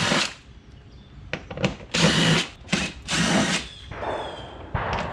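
Handheld power driver backing out the 10mm bolts that hold the car's rear diffuser on. It runs in several short bursts of about half a second each, with a falling whine after the last burst.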